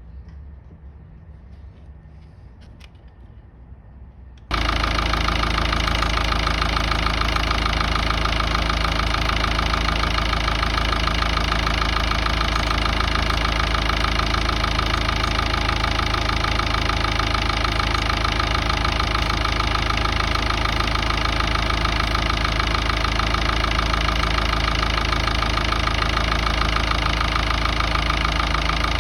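Ford Ranger's 3.0 Power Stroke four-cylinder turbodiesel running steadily at idle. After a faint low rumble, it comes in suddenly and loud about four and a half seconds in and holds an even, unchanging note.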